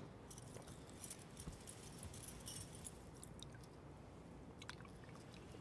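Near silence: faint room tone with a few soft clicks scattered through it.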